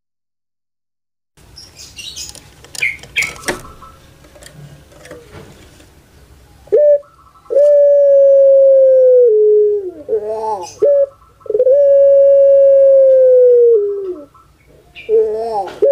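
Puter pelung dove (Streptopelia risoria) cooing loudly: after a few seconds of faint scratchy chirps, two songs start about seven seconds in, each a short note, then a long held coo that drops at its end and breaks into a warbling gurgle, the 'kuk gerukkk kwokkk' song of the breed.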